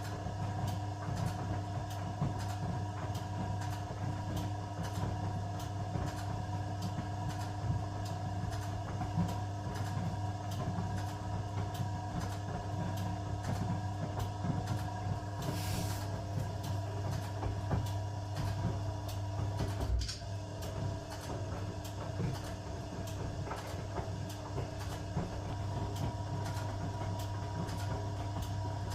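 1982 Eudora Sparmeister 700 washing machine running: a steady motor hum with a fast, regular light ticking. A short hiss comes about halfway through, and a single knock a few seconds later.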